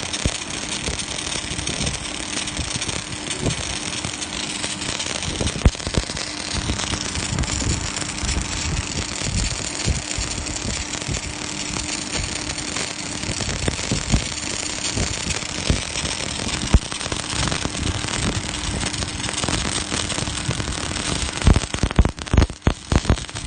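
MIG welding arc crackling and sputtering steadily, with a faint steady hum underneath. It turns choppy and broken near the end.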